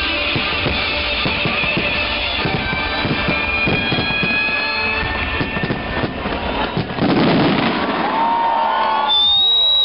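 Fireworks bursting and crackling in a dense barrage, with music playing underneath. Near the end the bangs thin out and high whistling tones glide down, followed by one steady high whistle.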